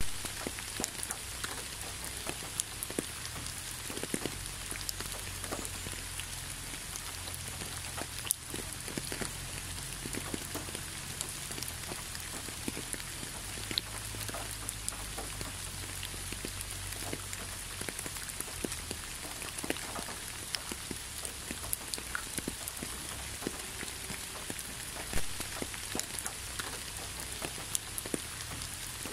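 Steady rain falling on a wet asphalt road, with many separate drop hits scattered through an even hiss.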